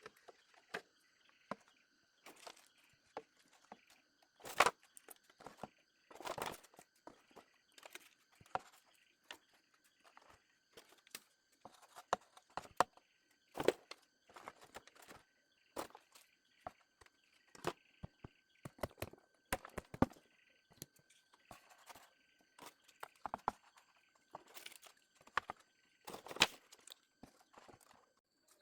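Irregular knocks, taps and scrapes from hand work, about one or two a second with a few louder strikes, over a faint steady high-pitched tone.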